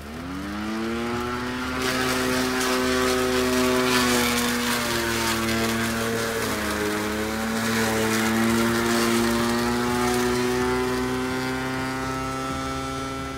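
Corded electric lawn mower starting up, its motor whine rising in pitch over about a second, then running steadily as it cuts tall grass. The pitch dips briefly a little past halfway, then comes back up.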